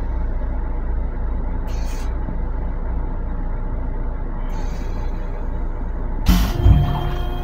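Steady low rumble of a Long Island Rail Road M7 electric railcar running, heard inside its restroom. About six seconds in, there is a brief louder clunk with a short rattle.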